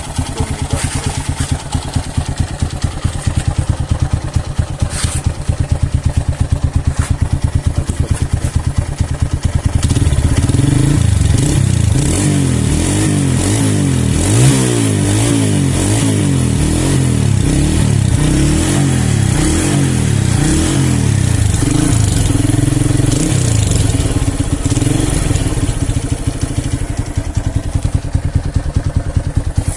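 Honda Megapro motorcycle's single-cylinder four-stroke engine idling through a freshly fitted Honda Tiger 2000 exhaust, then revved up and down repeatedly from about ten seconds in for some fifteen seconds before settling back to idle.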